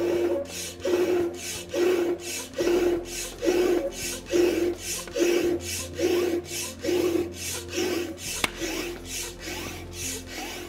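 Hand stirrup pump being worked steadily to inflate an inflatable awning's air-beam pole, with a rasping rush of air on each stroke, about two strokes a second.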